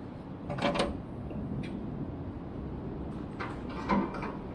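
A steel tube shifted and slid on a bandsaw's metal table: two short scraping clatters, about half a second in and again near the end, over a steady low hum.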